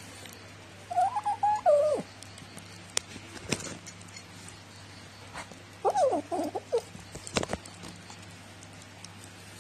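A cat making two short, wavering vocal phrases while eating from a plate, the first about a second in and the second about six seconds in, with a few sharp clicks between and after them.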